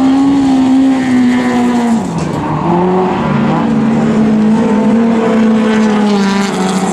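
Folk-race (jokkis) car engine running hard on a gravel track, held at high revs. Its pitch drops sharply about two seconds in as the throttle is lifted, then climbs back and holds, with a second engine audible alongside.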